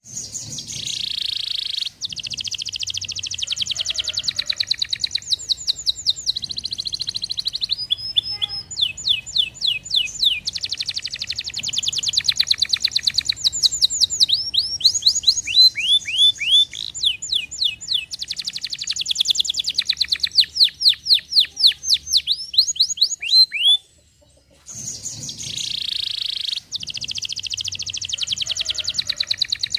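Domestic canary singing a long song of rapid trills and rolling phrases, with runs of quick downward-sweeping notes. The song breaks off briefly about three-quarters of the way through and then starts again.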